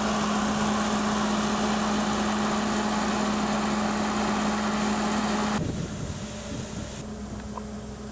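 Diesel railcar engine running close by: a steady drone with one constant hum. About two-thirds of the way through it cuts abruptly to a quieter, more distant drone of the same engine note.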